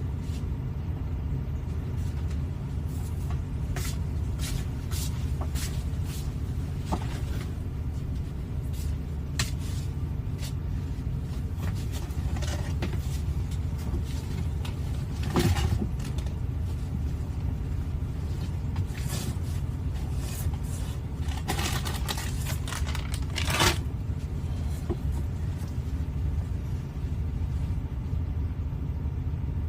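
Steady low rumble with scattered short clicks and knocks over it; the two loudest knocks come about fifteen and twenty-three seconds in.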